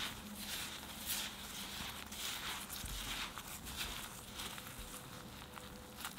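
Disposable-gloved fingers rubbing cold butter into flour, sugar and almond powder in a glass bowl, making crumble: repeated rustling swishes, about two a second, with a few light clicks.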